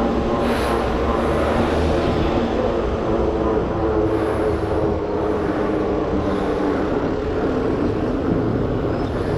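Surly Moonlander fat bike rolling over pavement: a steady rumble of tyre and wind noise with a faint hum that drifts in pitch.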